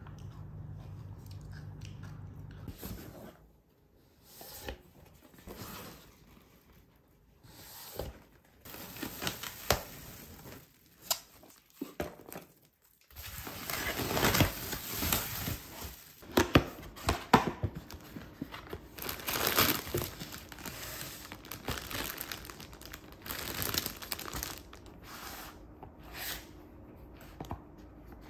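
Packaging being crinkled and torn open by hand: the rustle and crackle of a foil-lined insulated delivery bag and plastic wrappings, in a run of irregular crinkles that is loudest around the middle.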